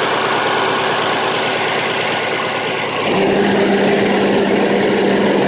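Heavy truck's Caterpillar diesel engine running in an open engine bay, with its large mechanical-driven cooling fan turning: a loud, steady running noise. About three seconds in it gets louder and a steady low hum joins it.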